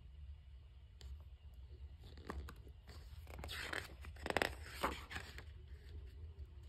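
A page of a paper picture book being turned: soft rustles and scrapes with a few light clicks, busiest in the middle, over a low steady hum.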